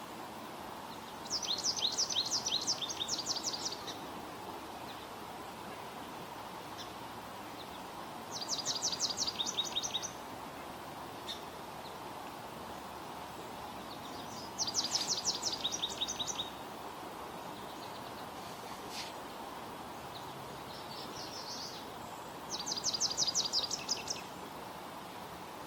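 American goldfinch singing: four bouts of rapid, high twittering notes, each about two seconds long, with pauses of several seconds between them, over steady background noise.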